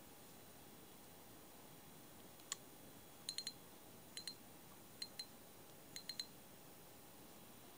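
Daiwa Silver 1300C fixed-spool spinning reel clicking as it is worked by hand: about a dozen light metallic clicks in small groups of one to three, starting about two and a half seconds in, over near silence.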